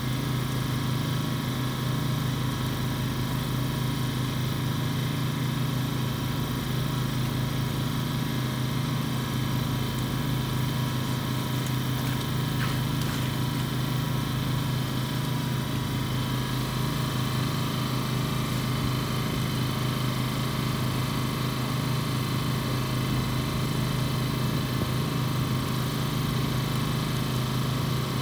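An engine idling steadily, a constant low hum with steady overtones that does not change.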